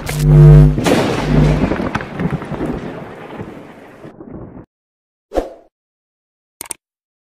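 Cinematic intro sound effects: a deep brass-like boom at the start that trails off into a rumble, dying away over about four and a half seconds. Then comes a short swoosh, and near the end a quick double click.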